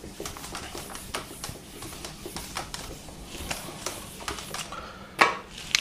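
Whiteboard duster wiping a whiteboard: quick, irregular rubbing strokes, several a second, with one louder short sound near the end.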